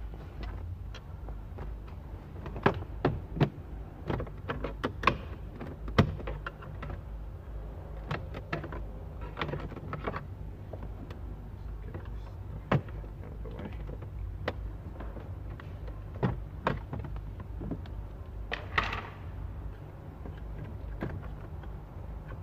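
Irregular sharp clicks and knocks of a Ford Falcon's plastic interior trim panels and clips being handled around the lower dash side and door sill, with a brief scraping rustle a few seconds before the end. A steady low hum runs underneath.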